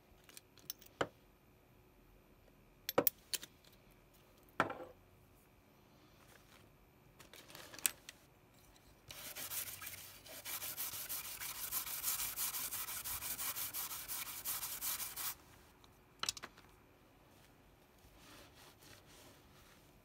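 A brush scrubbing back and forth over the surface of a freshly hand-soldered circuit board, cleaning off flux residue, for about six seconds around the middle. A few sharp clicks and taps come before it.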